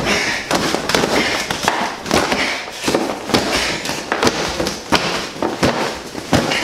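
Fists and a knee striking a red vinyl standing punching bag: a fast, irregular run of sharp smacks, several a second.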